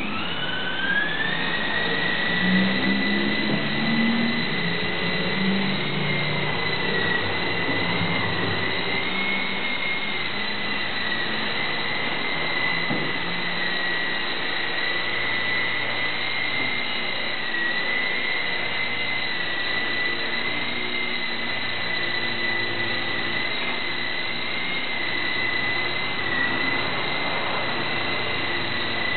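Small electric radio-controlled Robins 22 helicopter whining as it flies. Its motor and rotor spool up at the start, then hold a steady high whine whose pitch wavers slightly with the throttle.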